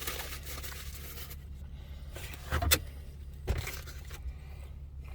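A phone being handled and set into a hands-free position: rustling, then two sharp knocks about a second apart, over a steady low hum.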